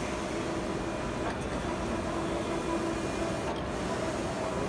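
Large-format solvent inkjet printer (Gongzheng GZC 3202SG with Dimatix Starfire heads) running a print job, its print-head carriage sweeping back and forth across the media with a steady mechanical whir. The whir swells and fades and dips briefly about every two seconds as the carriage makes its passes.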